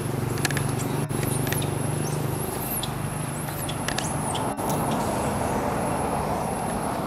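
Steady low hum of a running motor vehicle. Over it, in the first five seconds, come a series of short high chirps.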